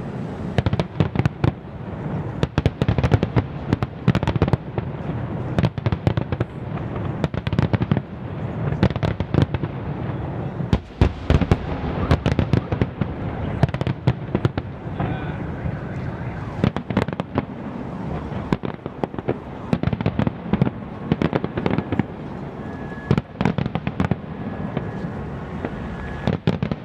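Aerial fireworks display: many sharp bangs and crackling shell bursts in quick, irregular succession over a steady low rumble.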